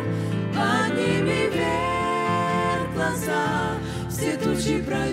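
Three women singing a Russian-language Christian worship song with vibrato into microphones, over instrumental accompaniment with a steady low bass.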